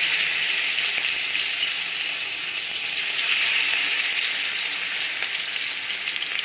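Masala-marinated fish pieces sizzling steadily in hot oil in a kadai on a low flame.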